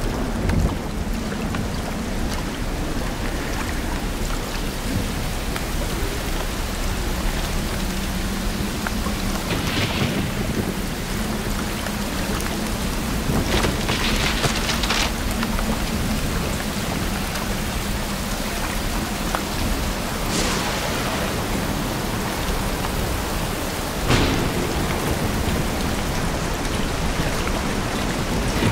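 Steady heavy rain with low rolls of thunder. A few louder crackling surges come through, the sharpest about 24 seconds in.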